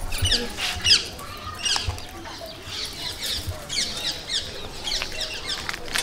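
Small animals chirping: quick runs of short, high-pitched chirps that fall in pitch, many times over, with a few sharp clicks among them.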